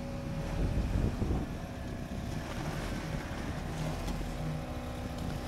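Jeep engine running steadily at low revs while rock crawling, with a couple of low thumps about a second in and wind on the microphone.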